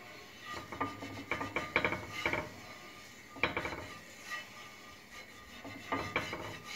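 A kitchen utensil scraping and rubbing against a frying pan in several short bouts, with light metallic clinks.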